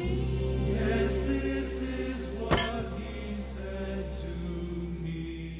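Background music of held, sustained tones over a deep steady drone, with one sharp hit about halfway through.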